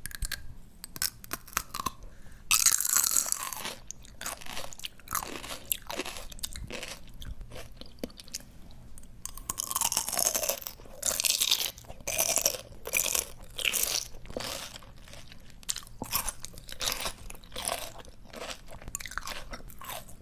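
Close-miked crunching and chewing of crisp, juicy raw greens in mouth, a steady run of wet crackles with two louder spells of crunching, about two and a half seconds in and again around ten seconds.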